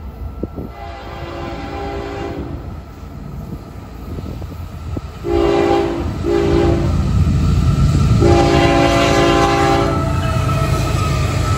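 Air horn of a Florida East Coast GE ES44C4 diesel locomotive sounding the grade-crossing signal in four blasts: long, two shorter, long. Under the horn the locomotives' diesel engines grow sharply louder from about five seconds in as the train reaches and passes the crossing.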